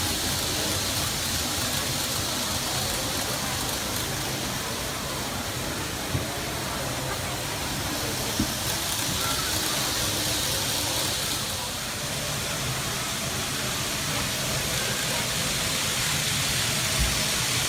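N-gauge model Shinkansen train running on the layout track: a steady running noise with a few light clicks, likely wheels crossing rail joints.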